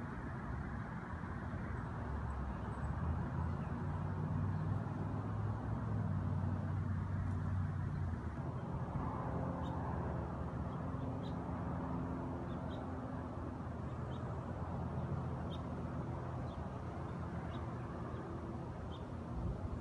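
Steady engine hum of vehicle traffic, its low pitch shifting about eight seconds in, with a small bird giving short chirps about once a second in the second half.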